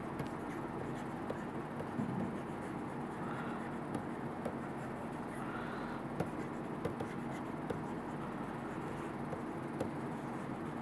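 Faint scratching and light taps of a stylus writing on a tablet screen, over a steady hiss.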